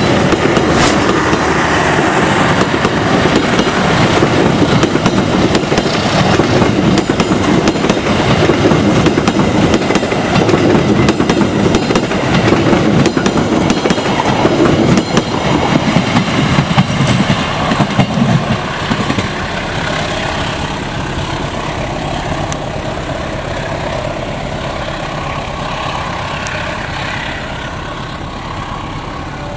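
Passenger train coaches rolling past close by, steel wheels running loudly on the rails. About eighteen seconds in, the noise drops, and it fades steadily as the last car passes and the train moves away.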